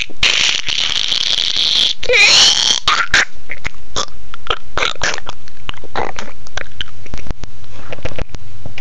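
A child's loud breathy, squealing vocal sound effects, then a fast, irregular run of knocks and taps of a hand on a plastic toy doll and playhouse.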